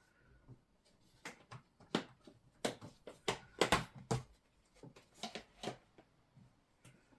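Handling noises: an irregular run of sharp clicks and light knocks, like small items being set into a plastic enclosure, clustered between about one and six seconds in.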